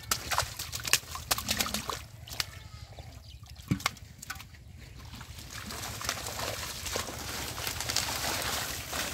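Splashing and slapping in shallow muddy water as a hand-caught catfish thrashes, with a sharp knock a little before four seconds in as it is dropped into a metal pot. After that, a steadier wet splashing noise.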